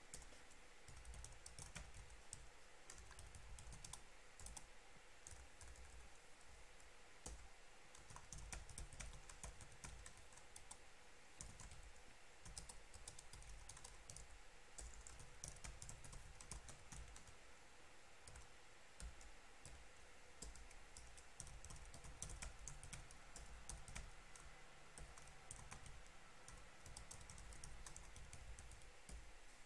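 Faint typing on a computer keyboard: irregular flurries of keystrokes with short pauses between them.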